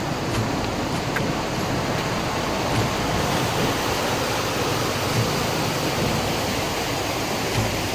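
Steady rush of a natural waterfall, white water pouring and splashing down rock chutes.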